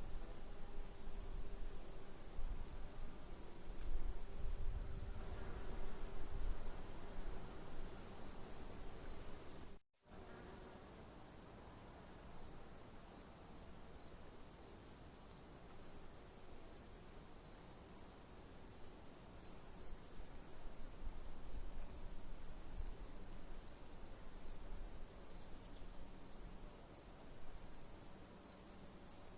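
Crickets chirping at night: a continuous high trill with a second, rapid pulsed chirping over it. The sound drops out completely for an instant about ten seconds in, then carries on.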